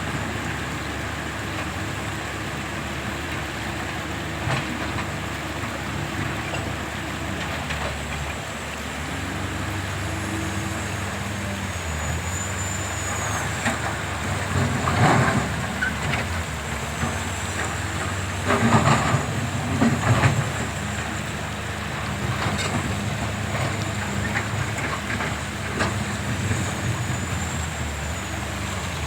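Hydraulic excavator's diesel engine running steadily, its pitch shifting as the load changes. Partway through come a few loud, rough bursts of the bucket working.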